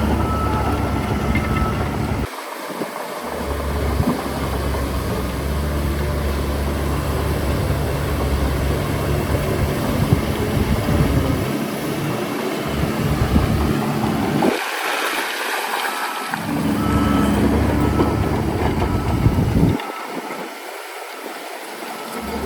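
Heavy diesel construction machinery engine running with a steady low rumble. The rumble drops away abruptly and comes back about two seconds in, in the middle, and near the end.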